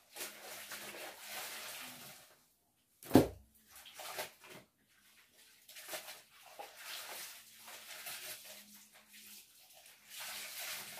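Wet laundry being lifted out of the water in an electric washing tub, with splashing and dripping in stretches. A sharp knock, the loudest sound, comes about three seconds in.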